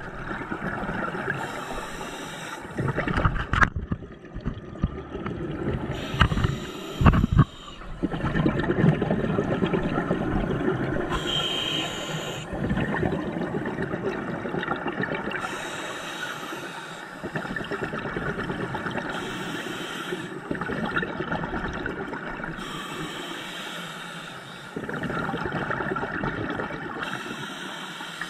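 A scuba diver's regulator breathing underwater: a short hissing inhale every four to five seconds, each followed by a longer bubbling exhale. A few sharp knocks come in the first eight seconds.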